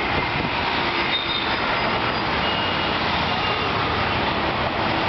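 Dense road traffic: a steady din of engines and tyres from buses, trucks and cars, with a few faint horn tones sounding through it.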